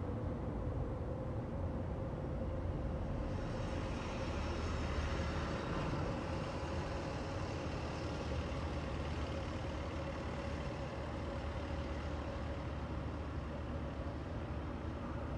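Road traffic heard from above: a steady low rumble with a faint constant hum, and a vehicle's tyre hiss swelling about three seconds in and fading slowly as it passes.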